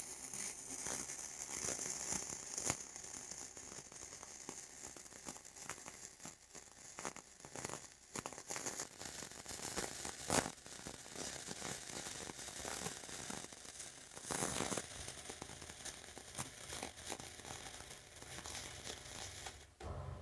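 Flux-core wire-feed welding arc on steel pipe, running steadily through a fill pass with .045 flux-cored wire: a dense, hissing crackle full of small irregular pops from spatter. The arc cuts off suddenly just before the end.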